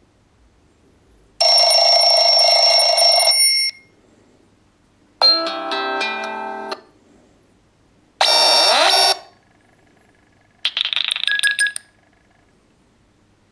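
Four short Nokia X7 stock phone tones played one after another, with brief pauses between them. The first is bright and buzzy, the second is a run of plucked notes fading out, the third has a rising sweep, and the fourth is a fast string of repeated notes.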